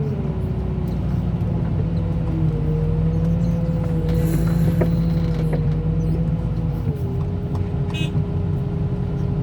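Car crusher's engine and hydraulics running steadily under load, with a whine that shifts in pitch as the machine is worked and drops about seven seconds in.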